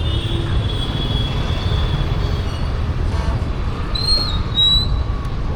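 Busy street ambience: a steady low traffic rumble, with two short high-pitched whistle-like tones about four seconds in.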